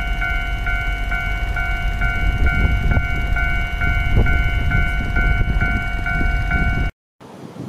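Railway level-crossing warning bell ringing steadily at about two strokes a second, over the low rumble of a diesel-hauled freight train pulling away. It cuts off abruptly about seven seconds in.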